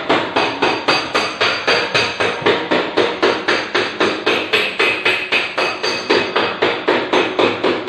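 Hammer blows on the sheet-metal fender of a car, struck in a steady, fast rhythm of about four a second, each blow ringing briefly. The fender is being hammered back into shape after a collision dent.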